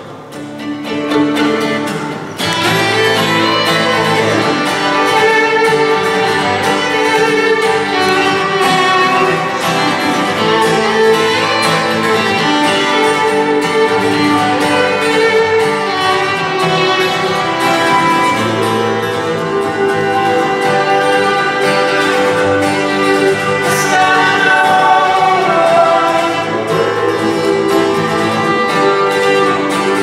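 Live acoustic folk music: a bowed violin playing over acoustic guitars, with voices singing. It starts thin and fills out into the full band about two seconds in.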